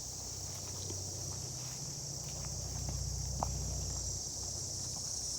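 Steady high-pitched chorus of insects in the woods, with faint footsteps on the trail and a low rumble that swells in the middle and eases off.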